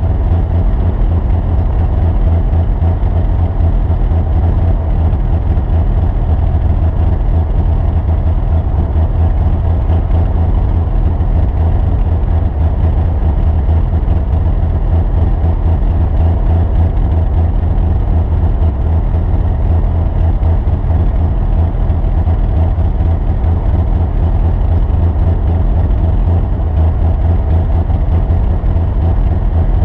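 A vehicle engine running steadily with a strong low rumble and no change in pace.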